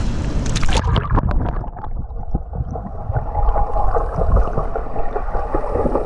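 Water splashing at a swimming pool's surface, then, from about a second in, the muffled underwater sound of a swimmer gliding in the streamlined arrow position with small flutter kicks, heard with the microphone submerged.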